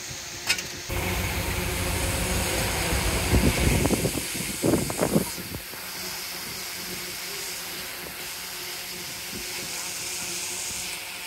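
Shantui DH17C2 bulldozer's diesel engine running with a steady hiss. It is louder for a few seconds through the middle, with a few surges as it works, then settles to a steadier level.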